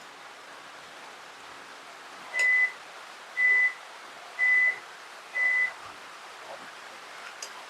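An electronic appliance beeper sounds four times, a single high tone each time, evenly spaced about a second apart.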